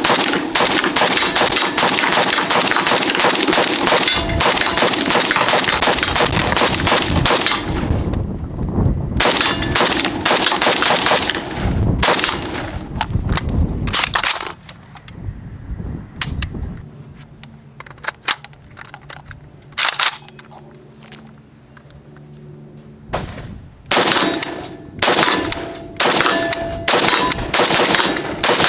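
WBP Jack 556SR, an AK-pattern rifle in 5.56 mm, firing a fast, dense string of shots for about fourteen seconds. A lull follows with only a few scattered shots, then slower single shots about one a second near the end.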